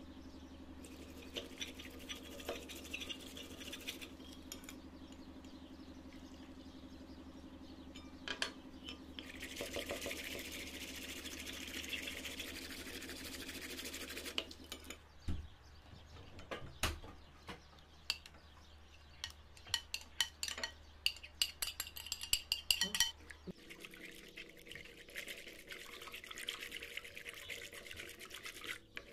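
Small handheld battery whisk of the milk-frother type whirring in warm jelly liquid in a glass bowl, whipping it into froth, with a run of sharp clicks and taps against the glass in the second half.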